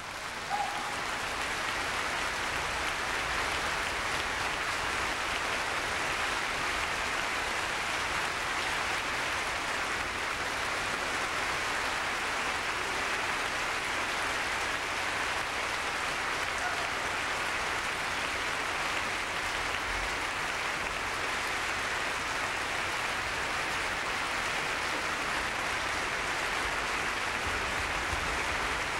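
Audience in a large concert hall applauding steadily, a dense, even clapping at the end of a performance.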